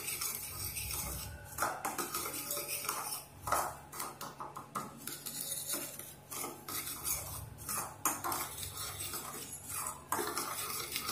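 Metal spoon stirring dry cornflour mixed with chilli powder and salt in a ceramic bowl, with irregular scrapes and clinks of the spoon against the bowl.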